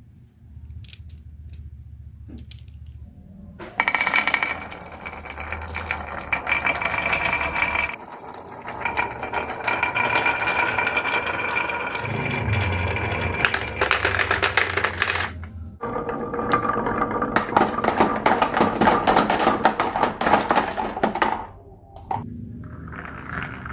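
Many marbles rolling and clattering down wooden marble-run tracks, a dense stream of clicks and knocks over a ringing roll. The clatter comes in two long runs, the first starting about four seconds in, with a short break past the middle.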